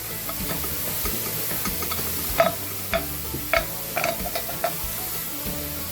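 Garlic sizzling in a hot pan with a steady hiss while a spoon stirs it. Several sharp knocks of the spoon against the pan come between about two and a half and five seconds in.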